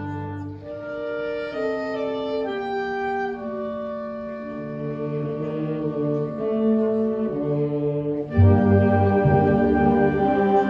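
High school concert band playing: woodwinds and brass hold sustained notes in a soft passage, then the full band comes in much louder, with heavy low brass, about eight seconds in.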